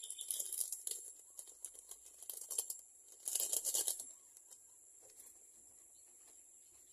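Soft, irregular rustling and crinkling of plastic bags and thin lumpia wrappers being handled and peeled apart by hand, with one louder rustle about three seconds in, after which it goes quiet. A steady faint high hiss lies underneath.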